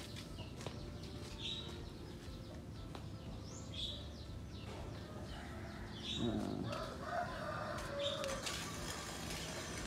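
Birds calling in the background: short high chirps every couple of seconds, and a longer, lower call from about six seconds in that PANN takes for a chicken.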